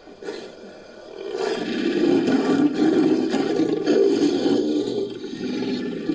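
Designed creature roar layered from big-cat and crocodilian recordings: a brief growl just after the start, then a long, rough, low roar from about a second in that tapers off near the end.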